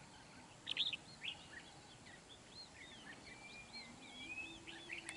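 Red-whiskered bulbuls calling: a quick run of short, arching chirps, the loudest about a second in, then a few longer, even whistled notes from about three seconds in.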